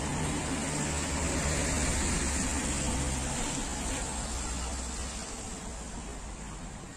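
Road traffic on a wet street: a passing vehicle's engine rumble with tyre hiss on the wet road, swelling about two seconds in and then fading.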